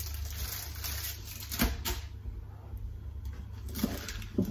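Food preparation handling at a kitchen counter: a soft rustling for about two seconds, then a few light clicks and knocks, over a steady low hum.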